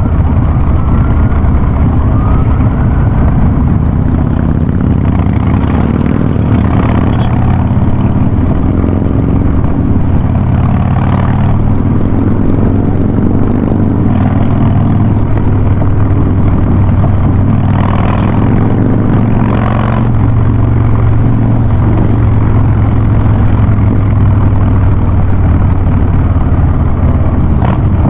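Harley-Davidson Ultra Classic's V-twin running through a Vance & Hines Big Radius exhaust on the move, a loud steady exhaust note with small rises and falls in pitch.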